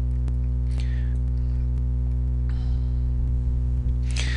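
Steady electrical mains hum with a stack of low harmonics, running at an even level, with a few faint clicks.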